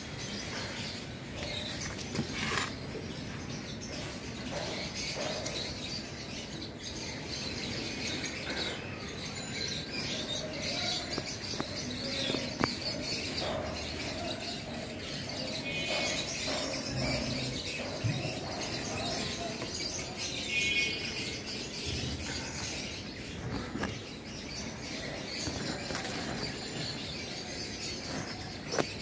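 Outdoor ambience: a steady background noise with a few short bird chirps, about halfway through and again a few seconds later, and a few soft clicks.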